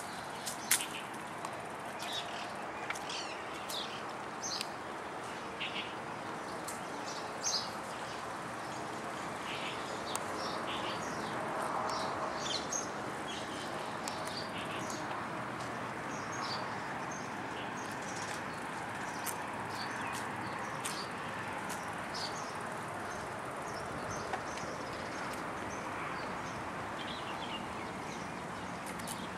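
Many small birds chirping, with short high chirps coming thick and fast throughout, over a steady background noise.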